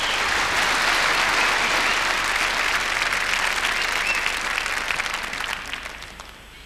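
Audience applauding, a dense steady clapping that fades away over the last second or so.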